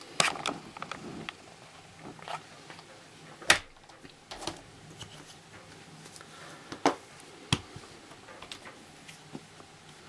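Scattered metallic clicks and taps from a brass Kwikset lock cylinder being handled and turned over in the hands, the sharpest about three and a half seconds in and two more around seven seconds.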